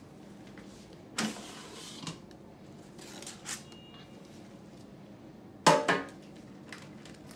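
Handling of a plastic air fryer basket during unboxing. The basket drawer slides out with a short scraping rush about a second in, cardboard packing rustles as it is pulled out, and later comes the loudest sound: a sharp clunk as the basket is set down on a glass tabletop.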